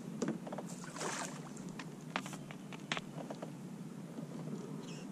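Kayak paddle being worked in the water: a splash about a second in and several sharp knocks of the paddle against the kayak a little after 2 and 3 seconds, over a steady low rumble.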